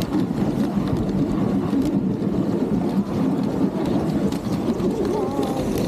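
Dog sled gliding along a packed snow trail: a steady rumbling scrape of the runners over the snow.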